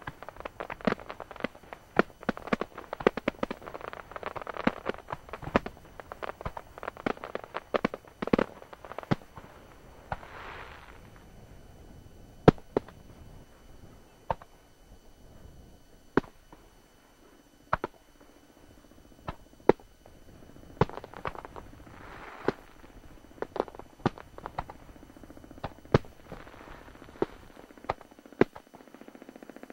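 Aerial firework shells bursting: a dense run of sharp bangs over the first nine seconds or so, then single bangs a second or two apart.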